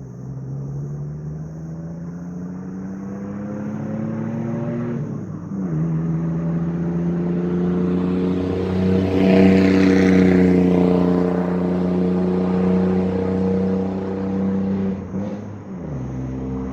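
Ford 4.2L V6 pickup engine on a straight-piped exhaust (muffler deleted, catalytic converters kept), accelerating from a take-off with the pitch rising steadily. The pitch drops at a gear change about five seconds in, then climbs again as the truck drives past, loudest about ten seconds in. It drops once more near the end.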